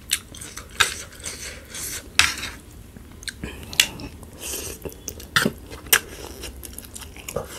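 Close-up eating of instant noodles with a metal fork. The fork clinks and scrapes on the plate, and there are slurps and chewing in between.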